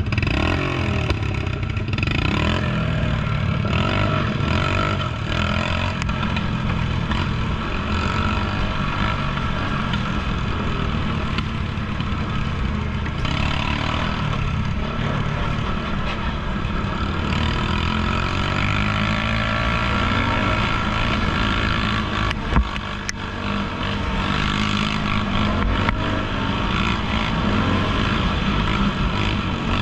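ATV engine running while under way on a trail, its pitch rising and falling with the throttle, with a brief dip in level about 23 seconds in.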